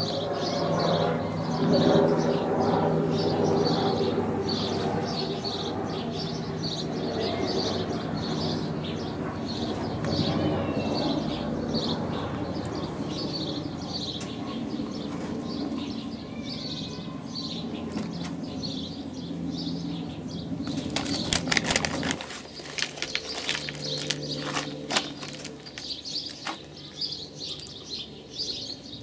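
A bird chirping over and over, short chirps at an even pace of about one and a half a second, over a low steady hum. Near the end a few sharp clicks and taps.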